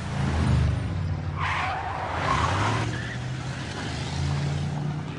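Car engine running with tyres skidding and squealing, the screech loudest from about a second and a half in to about three seconds.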